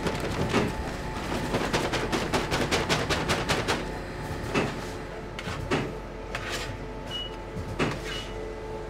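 A quick run of light knocks and clicks, about five or six a second, then a few scattered ones, over a steady machine hum. Two short high beeps come near the end.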